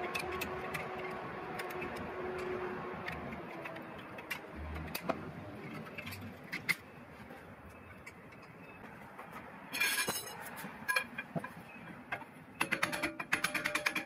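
Light metallic clicks and taps of a screwdriver prying the pad retaining clip off a car's rear brake caliper. There is a short scraping rattle about ten seconds in, and a fast, even mechanical rattle starts shortly before the end.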